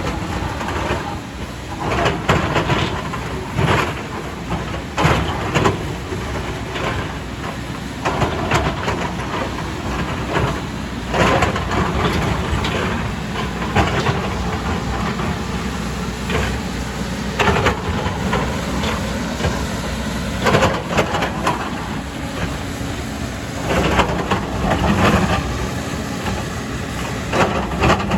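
Heavy excavator's diesel engine running steadily under load. Repeated loud clanks and scrapes of the bucket and steel working against rock and earth come a dozen or so times, unevenly spaced.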